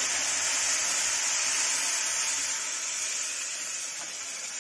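Hot water poured into a kadhai of ghee-roasted semolina and sugar, the hot pan hissing and sizzling steadily, easing off a little near the end.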